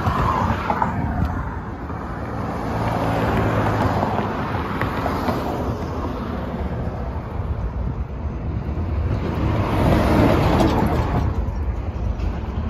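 Road-traffic and vehicle noise: a steady rumbling hum that swells and fades a couple of times.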